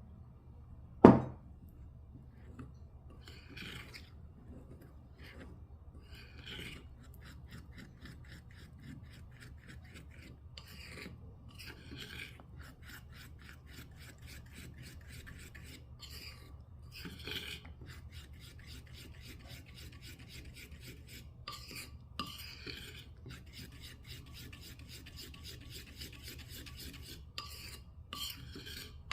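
Fast, even rasping strokes of a kitchen utensil worked against food or a bowl, with one sharp knock about a second in.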